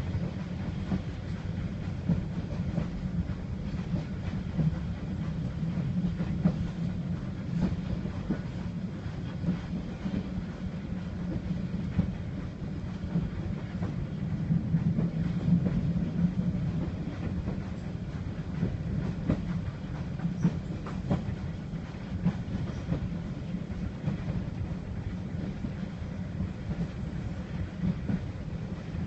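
Train running along the track: a steady low rumble with scattered clicks from the wheels on the rails.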